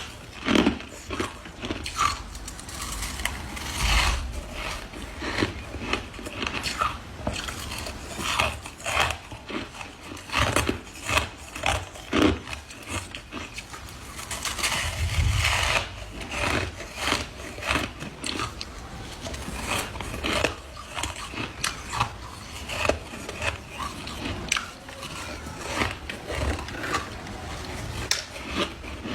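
Ice being bitten and chewed close to the microphone: a run of irregular sharp crunches and cracks, a few a second.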